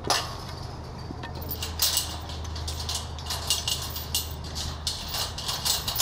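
Steel chain clinking and rattling against a chain-link gate as the cut chain is worked free, with a knock at the start and many quick clanks after that, over a steady low hum.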